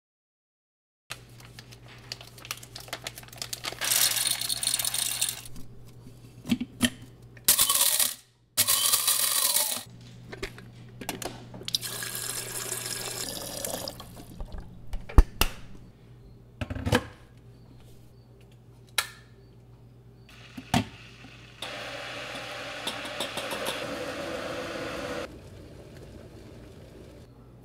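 Kitchen sounds of making coffee: several bursts of running water a second or two long, sharp clicks and knocks between them, and a steady rush of water for about three and a half seconds near the end.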